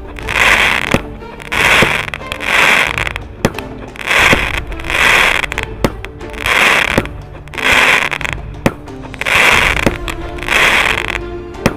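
Consumer firework battery (cake) firing shot after shot. Sharp pops are each followed by a burst of crackling stars, recurring a little more than once a second, over background music.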